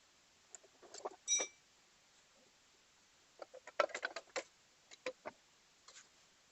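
Metal clinks and knocks as a motorcycle wheel axle is pulled out of the hub and the wheel is freed: a short ringing metallic clink about a second in, then a quick cluster of rattling knocks in the middle and a few single knocks after.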